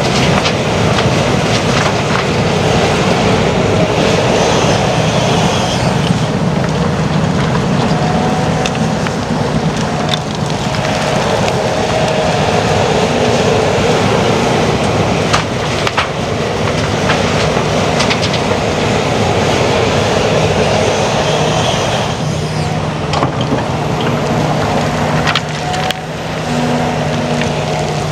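Diesel engines of heavy earthmoving machinery running steadily under load, with a few sharp metallic clanks scattered through.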